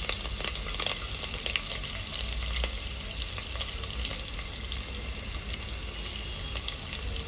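Hot oil sizzling steadily in a pressure cooker as cumin, ginger and sliced garlic fry in it for a tempering, with scattered sharp crackles and pops.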